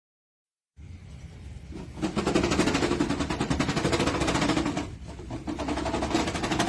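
SENIX 144 cc four-stroke gas lawn mower engine running with a rapid, even rattle, getting louder about two seconds in and dipping briefly near five seconds.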